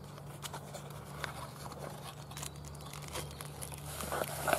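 Cardboard box being opened and handled: scattered light clicks and rustling as the flaps are worked and a plush pouch is pulled out, with a louder rustle near the end. A steady low hum runs underneath.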